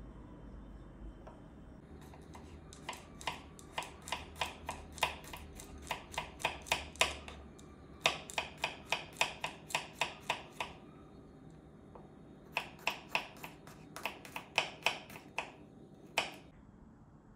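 Kitchen knife slicing garlic cloves on a bamboo cutting board. Each cut ends in a sharp tap of the blade on the board, about four taps a second, in three runs with short pauses between them.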